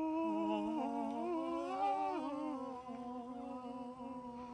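Two men's voices singing a long held 'aah' together in two-part harmony, the notes shifting a few times and growing quieter toward the end.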